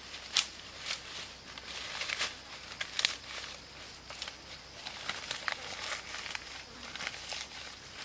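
Fresh leafy branches rustling and crinkling as they are handled and tucked into a leaf-covered shelter wall, in irregular crackles that are sharpest in the first three seconds or so.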